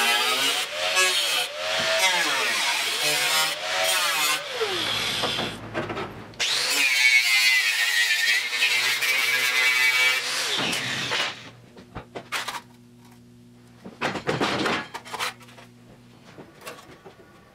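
Angle grinder grinding steel body panels, its pitch wavering as it bites under load; after a short pause a grinder cuts a clamped strip of sheet steel with a steady high whine. In the last few seconds the shop is quieter: a steady low hum with a few sharp metal clacks.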